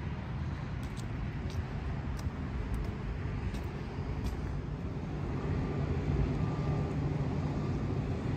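Steady low rumble of vehicle noise, with a few faint footstep-like clicks on wet pavement in the first half.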